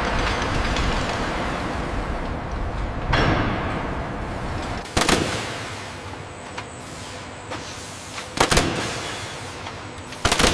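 Heavy industrial machinery noise: a steady rumble that fades after about five seconds, broken by four sharp bangs, two of them near the end.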